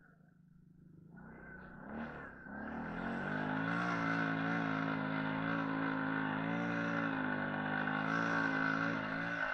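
TGB 550 quad bike's engine, quiet at first, then picking up about a second in with a brief rev and settling into a steady pull under load as the quad climbs a snowy slope. A steady high whine runs above the engine note.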